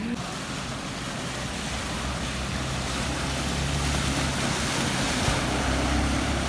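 A vehicle's engine running as it drives through deep floodwater, over a steady rush of water. The engine grows louder from about halfway through.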